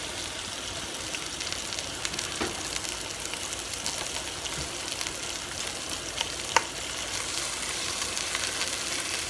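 Venison shoulder roast searing in hot olive oil in a Dutch oven: a steady sizzle with fine crackling, and a single sharp click about six and a half seconds in.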